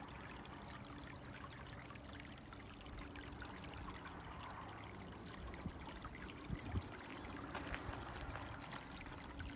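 Faint trickle of water running over stones in a small rocky channel, with scattered small ticks and splashes.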